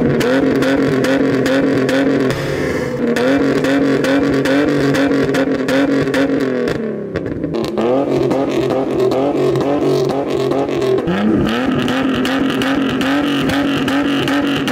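BMW 635 CSi's straight-six running through a custom valved exhaust, revved hard and held at high revs. The revs drop back and climb again about halfway through and once more about three-quarters of the way in. It is loud enough to read about 125 dB on a sound level meter at the tailpipes.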